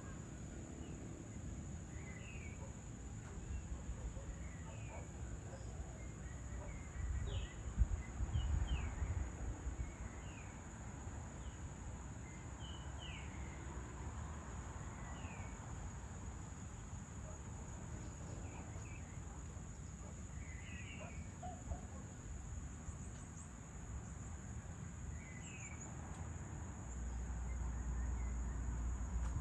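Dusk outdoor ambience: a steady high-pitched drone of crickets or other insects, with many short, falling bird chirps scattered throughout. A low rumble runs underneath and swells briefly about a quarter of the way in and again near the end.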